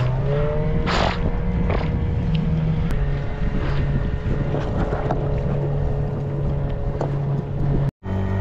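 Outboard motor of a small aluminium boat running steadily under way, with short splashes of water against the hull in the first couple of seconds. The sound cuts out for an instant near the end.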